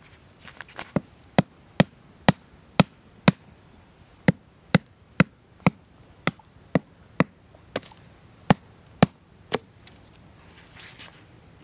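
A wooden stick hammering a wooden stake into the ground: sharp wood-on-wood knocks about two a second, with a short pause partway through.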